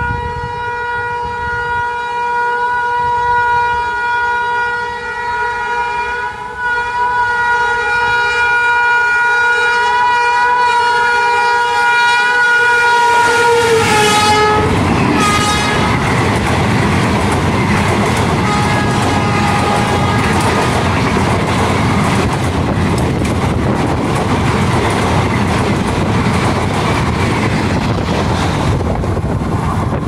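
WAP-5 electric locomotive's horn sounding one long blast as the train approaches, its pitch dropping about fourteen seconds in as it passes. A shorter, fainter horn note follows, while the ICF coaches rush past with steady wheel-on-rail noise and clickety-clack.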